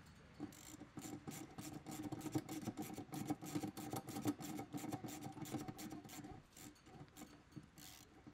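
Ratcheting socket driver clicking quickly, about five clicks a second, as it unthreads a compressor mounting bolt in a central air condensing unit. The clicking thins out after about six seconds.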